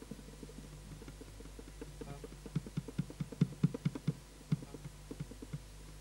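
Soft, irregular knocks, several a second, from about two and a half seconds in until near the end, over a steady low hum.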